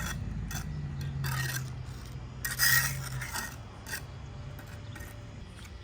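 A tool scraping on brick and mortar during masonry work, with two longer scrapes about a second and nearly three seconds in, the second the loudest, and light taps between.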